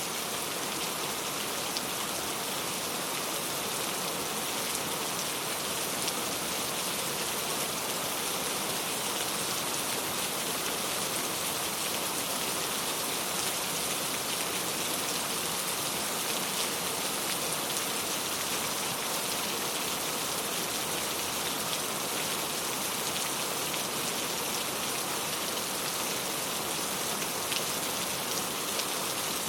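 Steady rain falling, a dense even hiss with many fine drop patters on a surface.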